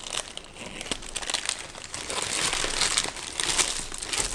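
Paper burger wrapper crinkling and rustling as it is peeled open by hand, in irregular crackles that get busier in the second half.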